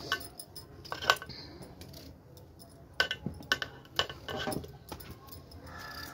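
Potatoes being cut by hand with a knife: a run of irregular light clinks and taps, with short pauses between them.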